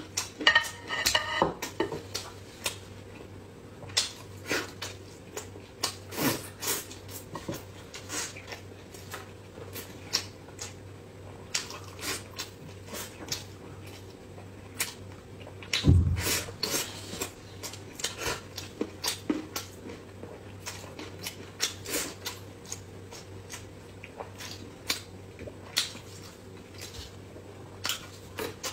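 Close-miked chewing and lip-smacking of someone eating glazed braised chicken wings, with many quick wet clicks of the mouth and now and then a light clack of chopsticks. A low thump comes about halfway through, over a faint steady hum.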